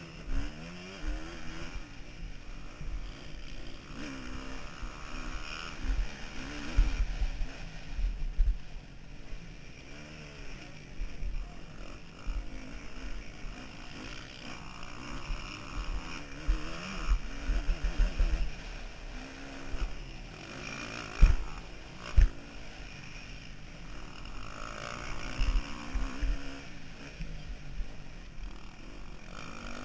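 Motocross bike engine revving up and down hard under racing load, heard close from a camera on the bike, with low rumbling and knocks as the bike runs over the rough sand track. Two sharp, loud thumps about a second apart come about two-thirds of the way through.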